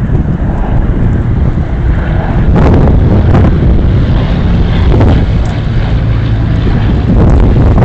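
Wind buffeting the microphone over a steady low engine drone, getting louder about two and a half seconds in and again near the end.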